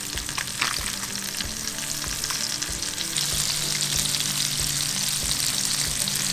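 Sheepshead fillets frying in hot butter and olive oil in a pan: a steady crackling sizzle, with a few light clicks of tongs turning the fillets in the first second. The sizzle grows louder about three seconds in.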